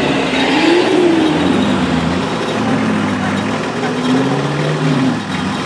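Off-road 4x4 engine revving up and dropping back twice as the vehicle pulls away toward a dirt climb.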